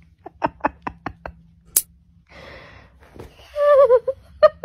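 A steel nail clipper snips a baby's fingernail with one sharp click about two seconds in. Around it are short vocal sounds and, near the end, a wavering drawn-out vocal note.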